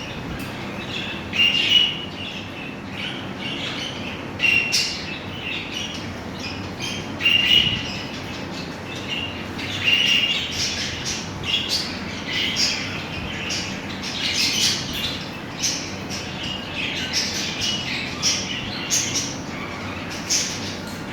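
Caged birds in a breeding setup calling over and over: many short, high calls, several a second, overlapping throughout.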